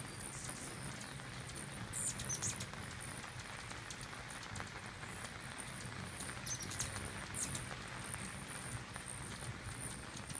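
A flock of hummingbirds hovering and squabbling at a nectar feeder: a steady low hum of many beating wings, with bursts of high, sharp chip and squeak calls about two seconds in and again around six to seven seconds.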